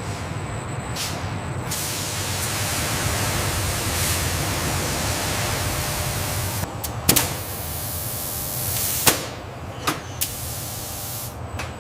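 Steady hissing noise, like a spray or air jet, that dies away about nine seconds in, with a few sharp clicks in the second half.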